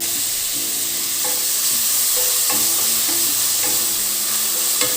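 Food sizzling in a frying pan: a steady hiss, under a soft background song.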